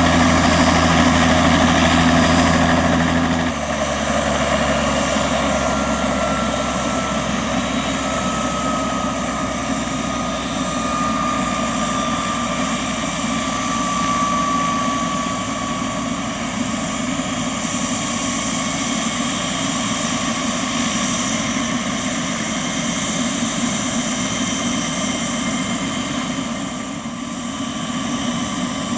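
Bell 206B-3 JetRanger III helicopter running, its rotor and turbine engine sounding steadily. The sound changes abruptly about three and a half seconds in, and afterwards the turbine whine glides slowly down in pitch.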